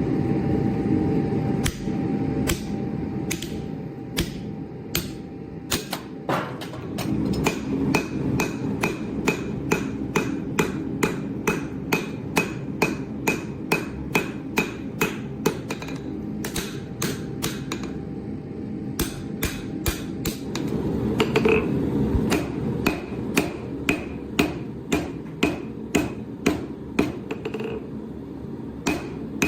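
Hammer blows on steel being forged, a few scattered strikes and then a steady rhythm of about two blows a second, with a short pause partway through. A constant low rumble runs underneath.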